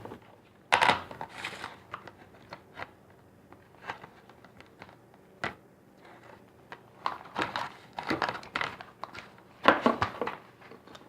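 Irregular rustles, scrapes and light knocks from hands working with slime-making materials and containers, in short bursts that cluster about a second in and again from about seven to ten seconds in.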